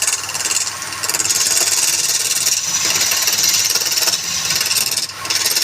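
Wood lathe running while a turning tool cuts the spinning wood: a steady high hiss that drops briefly twice.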